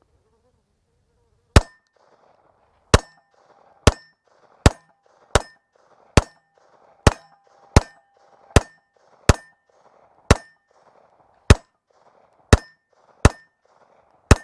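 Fifteen 9mm shots from a Walther PPQ M2 Q4 TAC pistol firing 124-grain ball, about one a second, beginning a second and a half in. Each shot is followed by a ringing clang from a steel target being hit.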